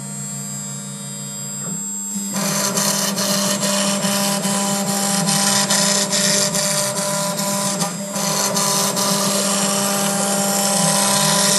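Huanyang VFD-driven CNC router spindle running with a steady hum; about two seconds in the bit starts cutting clear polycarbonate, adding a continuous harsh cutting noise as it mills a round hole.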